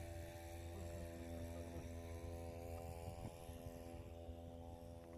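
A faint, steady low hum with a stack of even overtones that does not change in pitch or level.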